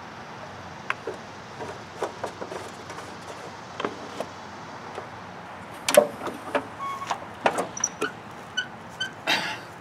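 Scattered clicks and knocks from closing up a garden tractor after fuelling: the fuel filler cap going on and the hinged seat swung down onto the fender, the loudest knock about six seconds in.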